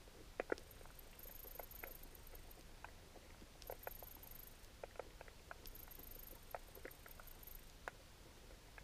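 Faint, irregular clicks and snaps underwater, a few each second, the loudest pair about half a second in: a crab picking at a dead fish with its claws.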